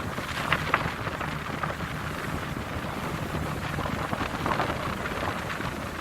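Sightseeing riverboat running steadily, a low engine hum under a wash of wind on the phone microphone, with a few brief higher sounds.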